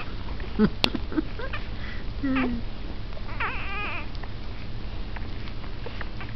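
Newborn bullmastiff puppy whining: a few short high squeaks, then a longer wavering whine about three and a half seconds in.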